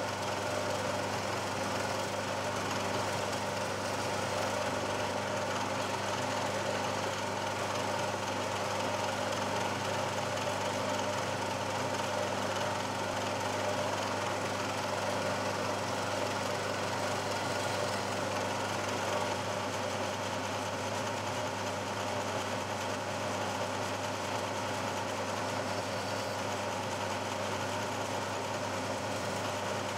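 Bridgeport milling machine running steadily, its spindle motor giving an even hum with several steady tones, while a drill spot drills holes in a steel plate.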